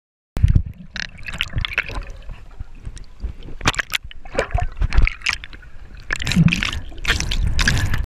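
Pool water splashing and sloshing against a GoPro's waterproof housing as it moves underwater and breaks the surface, in irregular splashes over a low rumble. It starts suddenly just after the beginning.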